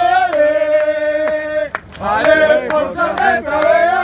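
Crowd of football supporters chanting in unison, many voices holding two long sung phrases with a short break between them.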